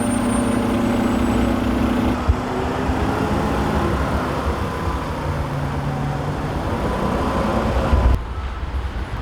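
City street traffic noise, with a heavy vehicle's engine running close by; its steady hum stops abruptly about two seconds in, and the traffic noise drops sharply near the end.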